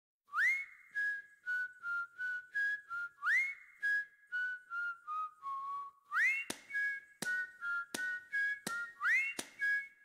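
Background music carried by a whistled melody. Each phrase opens with a quick upward slide and then steps through short notes, repeating about every three seconds. Sharp percussive clicks join in the beat about six and a half seconds in.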